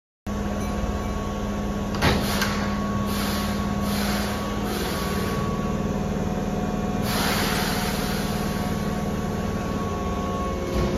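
Keihan 8000-series electric train standing at an underground platform, its equipment giving a steady hum. A sharp click comes about two seconds in, followed by several short bursts of hissing.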